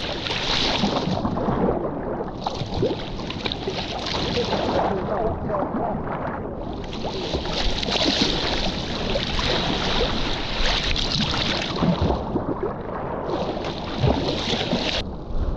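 Choppy sea water rushing and splashing against a sea kayak's hull in several long surges of hiss as it moves through the waves, with wind rumbling on the microphone.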